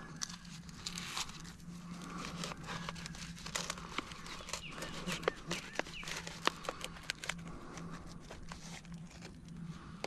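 Thin plastic seedling pot crinkling and clicking in quick irregular crackles as it is squeezed and handled to free a transplant and its root ball, over a faint steady low hum.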